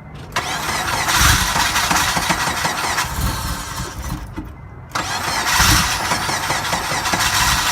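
A 2002 Acura RSX Type S's four-cylinder engine being cranked on the starter in two long attempts, the second beginning about five seconds in, without settling into an idle. Fuel is only just reaching the engine after a fuel pump replacement.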